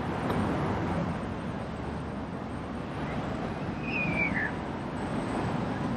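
Outdoor street ambience: a steady wash of passing traffic, with a brief high-pitched sound that rises and falls about four seconds in.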